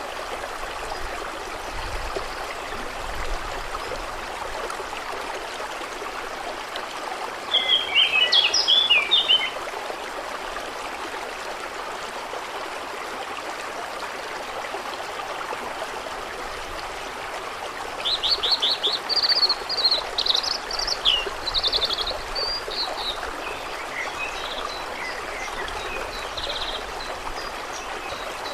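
Steady flowing water with birds singing over it: a short burst of chirps about eight seconds in, and a longer run of trills and chirps from about eighteen to twenty-three seconds, the loudest sounds.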